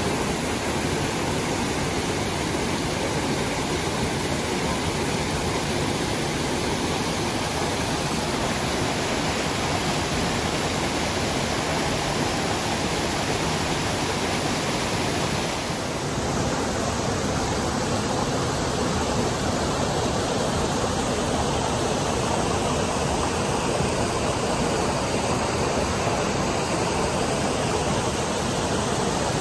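Mountain creek rushing over boulders and small cascades: a steady, full rush of water, with a brief dip and a slight change in tone about halfway through.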